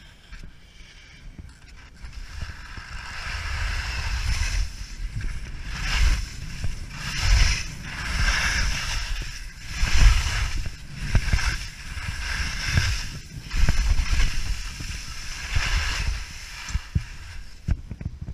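Head skis hissing and scraping through soft spring snow in a run of turns, the noise swelling with each turn about once a second. Wind buffets the helmet-camera microphone with low rumbling gusts.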